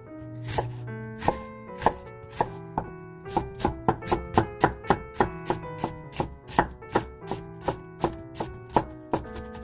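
Chef's knife chopping an onion on a wooden cutting board: sharp knocks of the blade on the wood, a few slower cuts at first, then a quicker steady rhythm of about three chops a second from about three seconds in.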